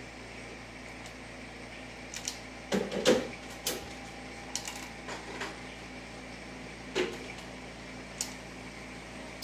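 Light knocks and clicks of cats pawing at a small plastic electronic cat toy, a cluster of several about three seconds in (the loudest), then single ones about seven and eight seconds in, over a steady low hum.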